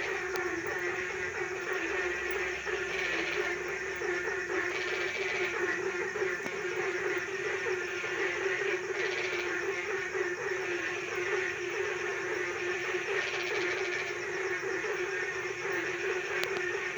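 A dense chorus of banded bullfrogs (kodok blentung) calling without pause, the low calls overlapping into a steady pulsing drone, with a higher chorus above it that swells and fades every couple of seconds.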